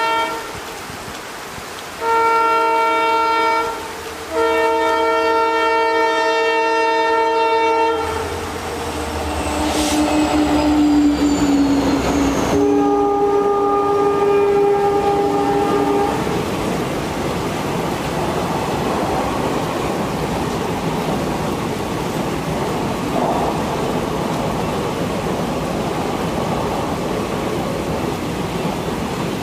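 A WDP 4D diesel locomotive's multi-tone air horn blows in three blasts as the train approaches, the locomotive rumbles past, and the horn sounds once more. After that comes the steady rush and rail clatter of the passenger coaches running by in heavy rain.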